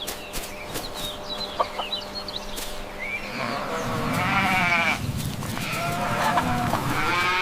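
A farm animal bleating twice in long, wavering calls, the first about halfway through and the second near the end. Faint short high chirps come before them.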